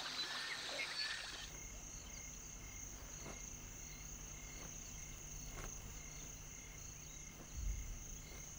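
Faint savannah wildlife ambience: a few bird chirps in the first second, then insects trilling in a steady, high drone.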